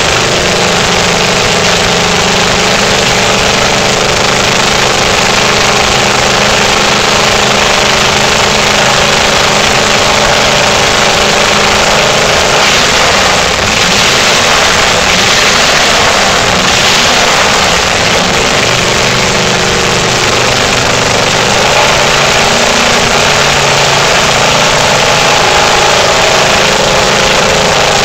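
Ford flathead V8 in a bare chassis, running steadily at idle through short open exhaust headers during its test fire.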